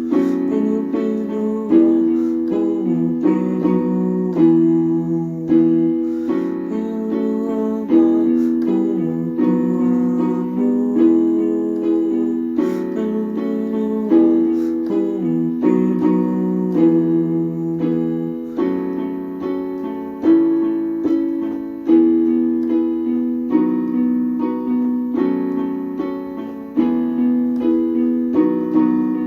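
Instrumental passage of a worship song, without singing: slow, sustained chords with a new chord struck every one to two seconds.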